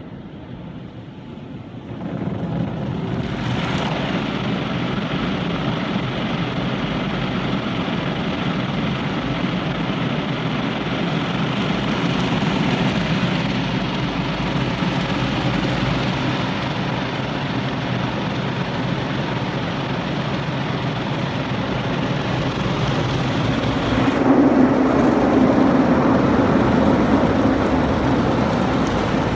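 Automatic car wash heard from inside the car: steady rushing of the wash machinery and water spraying over the bodywork. It grows much louder about two seconds in and turns to a heavier, lower rush about 24 seconds in.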